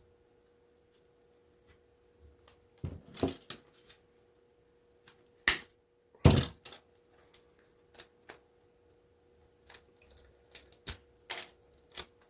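Scattered clicks and clinks of small pieces of copper wire and brass being cut and handled, with two louder clacks about five and six seconds in and a run of quick little clicks near the end.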